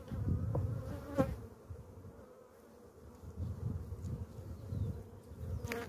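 Honeybees buzzing in a steady hum over an opened hive, with low rumbling handling noise in the first second or so as a frame is worked out of the box.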